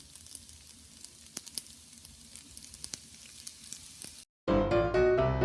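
Food sizzling in a frying pan: a steady hiss with scattered pops and crackles, cut off abruptly about four seconds in. Piano music starts right after and is the loudest thing at the end.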